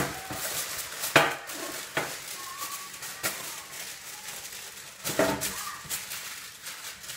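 Aluminium foil crinkling and crackling as it is crumpled by hand and pressed into a metal baking tray, with irregular sharp crackles, the loudest about a second in and again around five seconds in.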